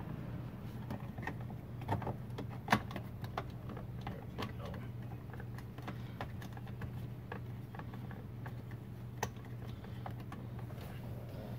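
Plastic interior trim of a BMW E46 center console being handled and pressed back into place: scattered light clicks and taps, the sharpest about three seconds in, over a steady low hum.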